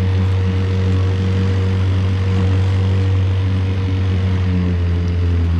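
A 1969 Johnson two-cylinder outboard motor running steadily at half throttle for trolling, firing on only one cylinder. It holds an even, unbroken drone.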